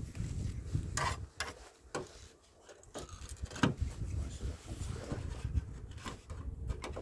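Scattered clicks and knocks of metal panels and tools being handled, the loudest about three and a half seconds in, over a low, uneven rumble.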